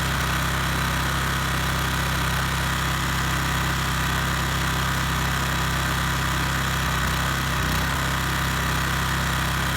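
Subaru SG550 portable generator's engine running at a steady speed, its carburettor's idle adjust screw set one and a half turns out after an overhaul.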